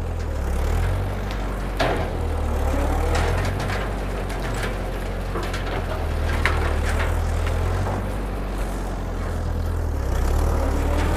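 A 1948 Ford 8N tractor's four-cylinder engine running steadily at working throttle while its PTO drives a Woods M5 rotary brush cutter through thick weeds. A few sharp clacks, the loudest about two seconds in, come as the blades strike something hard such as a rock.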